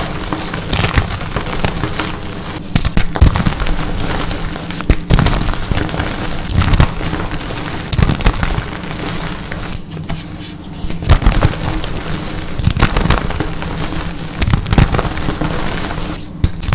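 Dyed gym chalk blocks shaped like pumpkins being crushed and crumbled: a dense, crisp crackling crunch with louder crunches every second or two.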